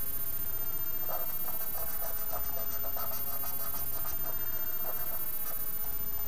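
A cotton bud rubbed and rolled over a wet decal on a plastic model tank hull: a run of faint, quick scratchy strokes, starting about a second in and dying away near five seconds.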